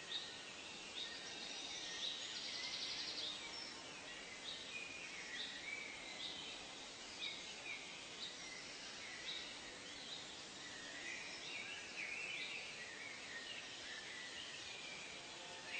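Wild birds calling in a chorus: short chirps repeated about once a second, with a brief rapid trill about two seconds in, over a steady background hiss.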